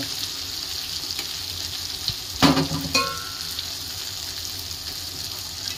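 Urad dal fritters (bara) deep-frying in hot oil in a kadai, a steady sizzle. About two and a half seconds in comes a loud metal clank, then a brief ringing tone.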